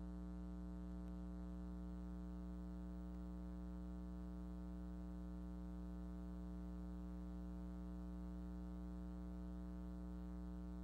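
Steady electrical mains hum: a low buzz with a ladder of higher overtones that never changes, the background hum of a VHS tape playback and capture.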